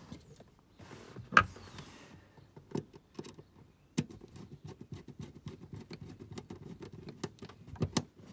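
Hand work on a mains electrical socket: small clicks and knocks as the wiring and tools are handled, the loudest click about a second and a half in. From about halfway in comes a fast scratchy rattle as a screwdriver turns in the terminal screws.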